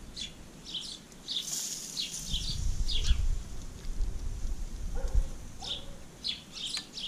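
Small birds chirping in many short calls, over a low, uneven rumble.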